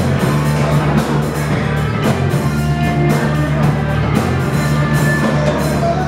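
Live rock band playing with drum kit and electric guitar, a steady beat and a sustained bass line.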